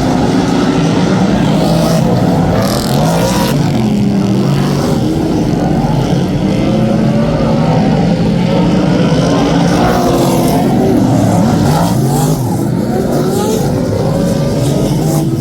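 Several superstock speedway cars racing, their V8 engines revving up and dropping back as they go round the track, with pitches rising and falling and overlapping throughout.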